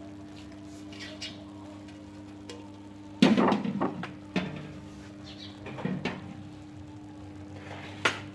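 Metal cooking utensils clanking against a pot in a series of sharp knocks, the loudest about three seconds in, over a steady low hum.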